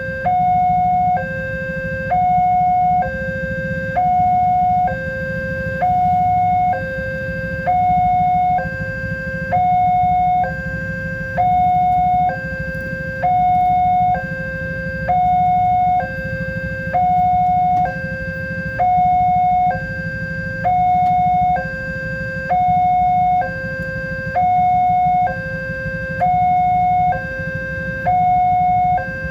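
Level-crossing warning alarm sounding continuously, alternating evenly between a higher and a lower tone, a full high-low cycle about every two seconds. There is a steady low rumble underneath.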